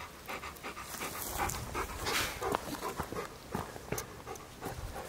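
A large dog panting steadily, with a few faint clicks.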